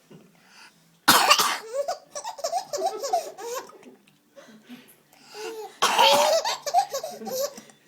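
Two sharp pretend coughs, one about a second in and another near six seconds in, each followed by a baby's giggling laughter.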